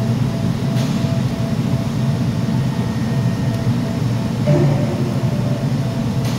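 Steady low rumbling noise of a large industrial shop, with a faint intermittent tone above it.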